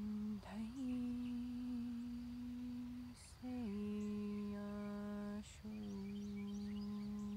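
A woman humming long, steady low notes, one after another, with a short breath between each; a new note begins about half a second in, another about three and a half seconds in, and another near six seconds. This is vocal toning used in a light-language healing session.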